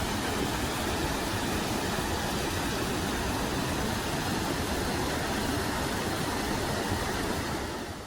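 Loud, steady rushing noise with a rumbling low end, unbroken until it cuts off abruptly at the very end.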